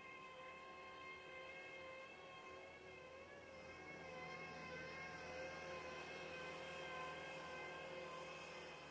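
Distant jet airliner engines whining: several steady high tones over a low rumble, wavering slightly and growing a little louder about four seconds in.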